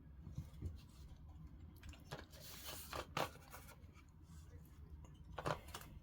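Light scrapes and clicks of small parts being handled on a work surface, a cluster about two to three and a half seconds in and one more near the end, over a faint low hum.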